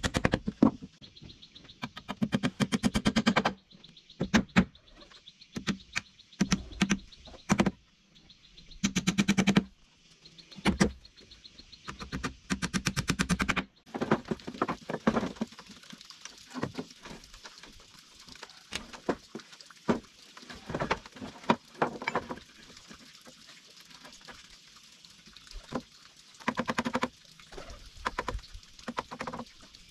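Hand woodworking on wooden cabinet parts: quick runs of rapid taps and knocks on wood, then scattered single knocks over a faint steady hiss.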